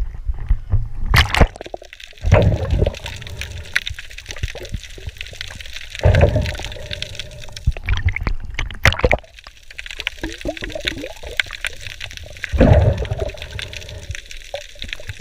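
Sea water splashing and sloshing around a camera at the surface in surges a few seconds apart, then bubbling as it goes under.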